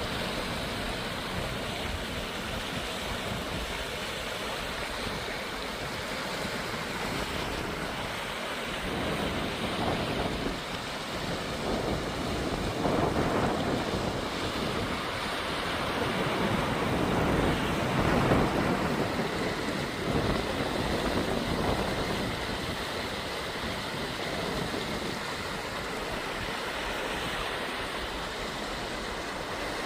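Mountain valley stream rushing steadily over rocks, a continuous hiss of flowing water that swells louder through the middle.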